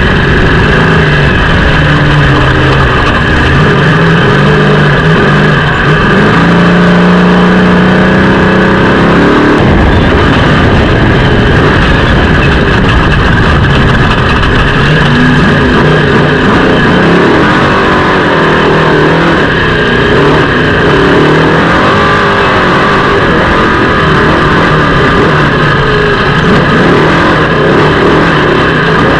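Off-road race vehicle engine running hard and loud, the revs rising and falling repeatedly in the first ten seconds, then a rougher, noisier drive.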